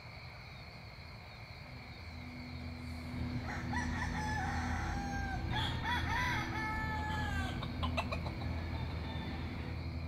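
A rooster crowing once, a long crow of about four seconds starting about three seconds in, over a steady low hum.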